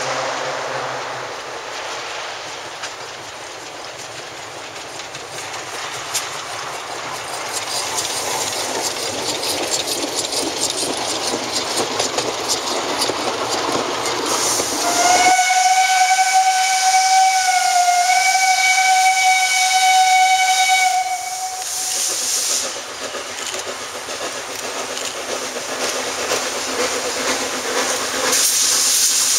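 Narrow-gauge steam locomotive on the move: a noisy running sound at first, then one long steam whistle blast held at a single pitch for about six seconds. Near the end a loud hiss of steam swells up as the locomotive vents steam from its cylinders.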